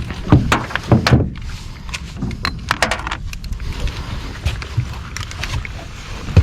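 Scattered knocks, clunks and clicks around a small fishing boat over a steady low rumble.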